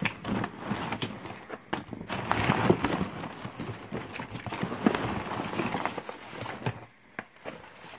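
Gloved hands rummaging through a cardboard box of old toys and crumpled newspaper: irregular paper rustling and crinkling, with plastic toys knocking together, and a short lull about seven seconds in.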